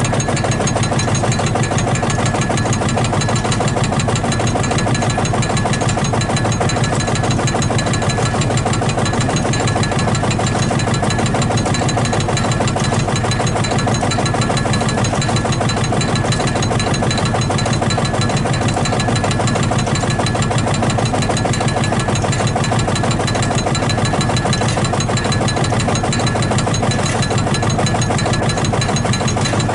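Field-Marshall tractor's single-cylinder two-stroke diesel engine running steadily, each firing stroke a distinct, evenly paced knock in a rapid beat.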